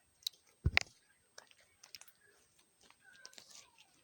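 Slime with large water beads in it being squeezed and mixed by hand: scattered wet clicks and squelches, with one louder squelch a little under a second in.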